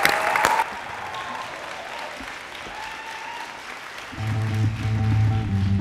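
Audience applauding, loudest in the first half-second and then fading. About four seconds in, a small rock band starts playing, with bass guitar and guitars.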